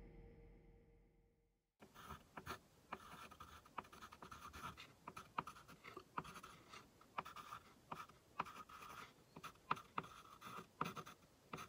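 Background music fades out over the first two seconds. Then a hand-held pen writes on the painted board in quick, short scratching strokes with small tapping clicks.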